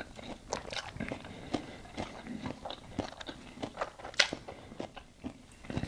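Close-up chewing and crunching of a mouthful of salad: irregular wet crunches and mouth clicks, with one louder crunch about four seconds in.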